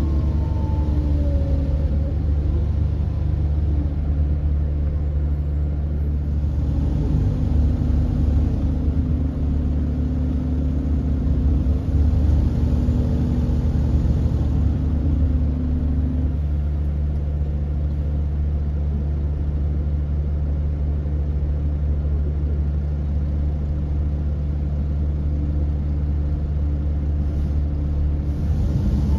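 Volvo B7R coach's diesel engine running as the coach drives, heard from inside the passenger cabin as a steady low drone. A higher tone above it shifts in pitch a few times during the first half.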